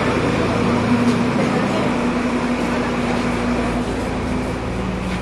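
Steady low drone of an idling diesel railcar engine, an Alerce diesel multiple unit, holding an even pitch with a constant hum underneath.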